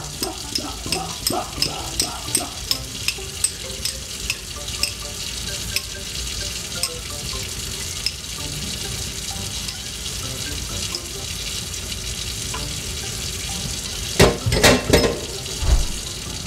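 Metal kitchen utensils scraped against each other in quick strokes, about three a second for the first few seconds and then more sparsely, over a tap running steadily into a sink. A few loud knocks come near the end.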